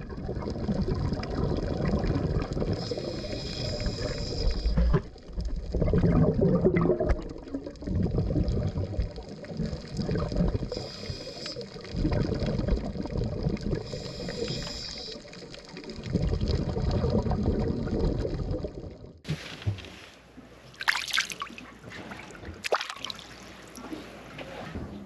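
Water sloshing and gurgling against an action camera's housing, partly underwater.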